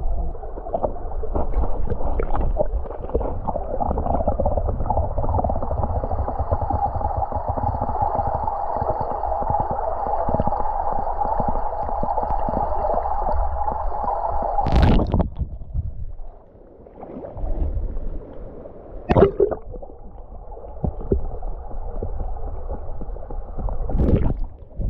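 Flowing creek water heard through a microphone held underwater: a steady, muffled rush with gurgling and crackle. A sharp knock comes about two-thirds of the way through, after which the rush is quieter, and two more knocks follow near the end.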